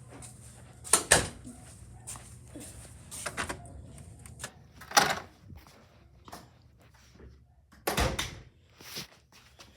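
A series of sharp knocks and bangs in a small room, the loudest a pair about a second in and another near the middle, with more spaced through the rest.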